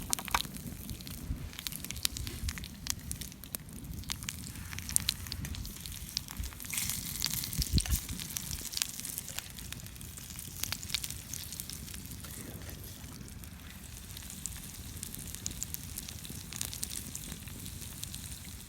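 Wood campfire crackling, with irregular sharp pops and snaps over a steady hiss. The hiss grows denser for a moment about seven seconds in.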